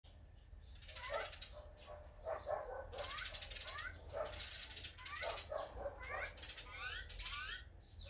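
Small songbirds chirping busily: short rising chirps in quick runs of three or four, over and over, with some harsher hissy calls among them.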